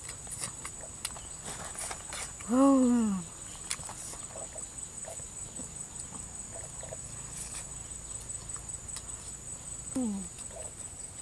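A woman hums a falling, satisfied "mmm" twice, about two and a half seconds in and again near the end, over small clicks and smacks of eating with the fingers. A steady high-pitched insect buzz runs underneath.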